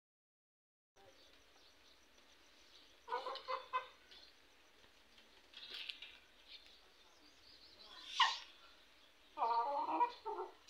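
Chickens clucking in short bursts a few seconds apart over a faint background, starting about a second in.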